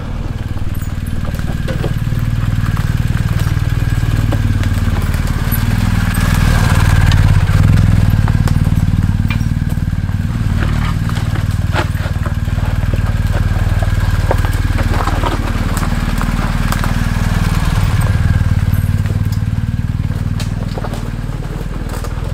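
BMW GS boxer-twin engine revving up and down at low speed over a rough, rocky track, swelling twice as the throttle opens, with stones clicking and clattering under the tyres.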